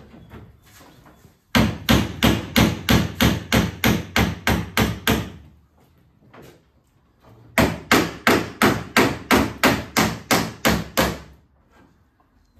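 Hammer beating the sheet metal of a car's rear wheel arch back into shape. Two runs of steady, evenly spaced blows, about four a second, each lasting three to four seconds, with a short pause between.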